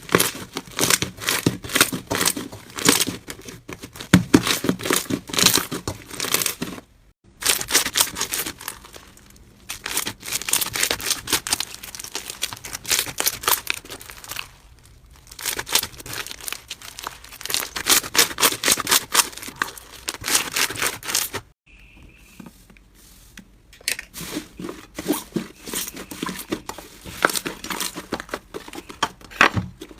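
Slime being squeezed and worked by hand, giving dense crackling and popping clicks. It breaks off briefly twice, about seven seconds in and about two-thirds of the way through.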